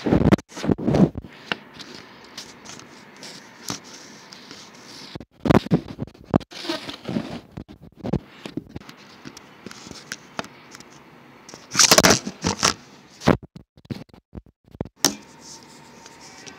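Irregular bursts of scraping, crackling noise from a phone's microphone being handled and rubbed, over a steady low hiss. The loudest bursts come just after the start, in the middle, and near 12 seconds.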